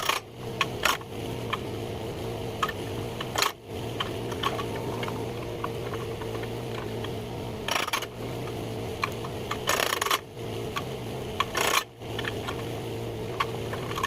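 Scattered wooden knocks, clicks and scrapes of firewood being handled, over the steady hum of a mini excavator's engine running. Two longer scraping noises come in the second half.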